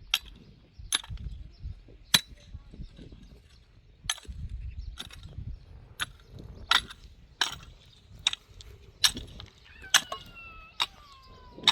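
Sharp knocks or strikes repeating roughly once a second, over a low rumbling background, with a faint high squeak that falls in pitch near the end.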